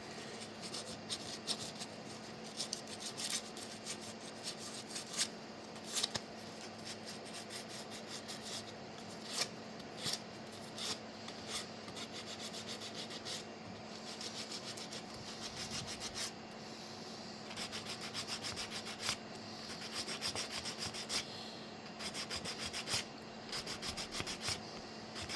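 Sandpaper rubbed by hand over a 3D-printed PETG part, in short irregular strokes, scuffing off its shiny surface.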